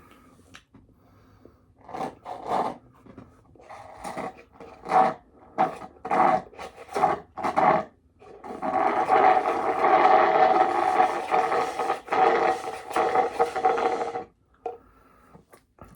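Handling noise close to the microphone: a run of short scrapes, then several seconds of continuous rubbing.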